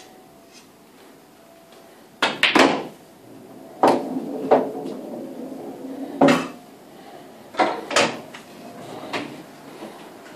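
Pool balls clacking: a cue strikes the cue ball and balls knock together on the table in a string of sharp clicks. The loudest cluster comes about two seconds in, with a low rumble of rolling balls between the later knocks.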